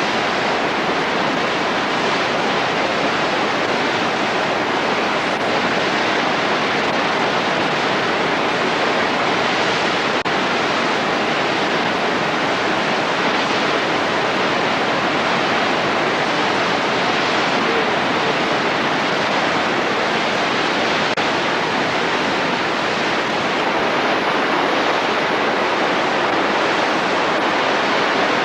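Steady rush of heavy water flow at Mena Creek Falls, an even noise without a break.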